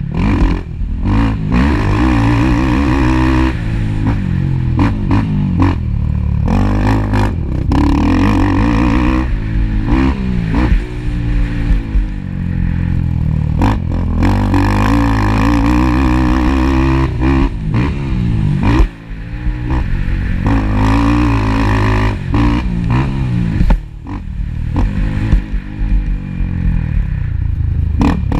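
Motocross ATV engines racing, revving up and falling off again and again, with scattered knocks and clatter.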